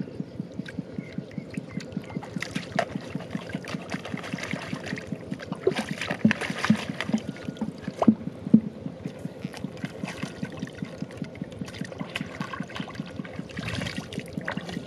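Shallow muddy water splashing and trickling as a person wades and works with his hands in it, louder in a cluster of splashes around the middle. Under it runs a steady fast throbbing, about five beats a second.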